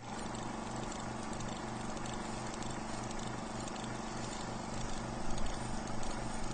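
Film projector sound effect under a countdown leader: a steady rhythmic clatter over a low hum, with film crackle, a little louder near the end.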